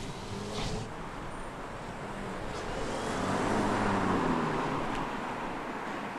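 BMW F30 3 Series sedan driving past, its engine and tyre noise growing to a peak about four seconds in and then fading.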